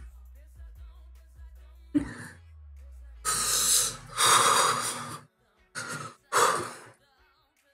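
Breathy exhalations from a man: four bursts of blown air a few seconds in, each lasting about half a second to a second, the second one the loudest.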